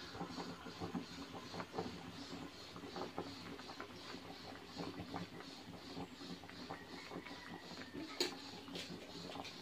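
Pot of water with pork belly at a rolling boil: faint steady bubbling with irregular small pops, and one sharper pop about eight seconds in.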